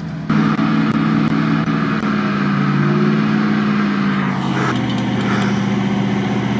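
GAZ-66 truck's engine running at raised revs under load as the truck winches itself through deep mud. The engine picks up just after the start, its pitch sags slowly and then drops lower about four seconds in.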